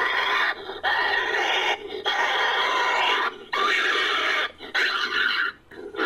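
Creature sound effect made from American badger recordings: a run of about six harsh, raspy calls, each under a second and a half, with short breaks between them.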